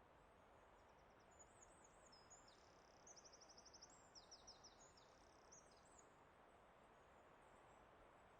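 A faint songbird sings one varied phrase of quick trills, rapid repeated notes and down-slurred whistles, starting about a second in and stopping near six seconds. A soft steady hiss of background ambience runs underneath.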